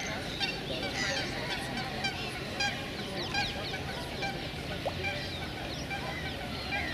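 Birds calling: many short, quick chirping and honking calls over a steady low rumble.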